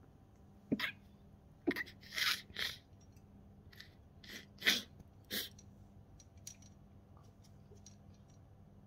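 Handling noise from socks being clipped onto the pegs of a hanging drying rack: about seven short clicking and rustling scrapes within the first five or six seconds.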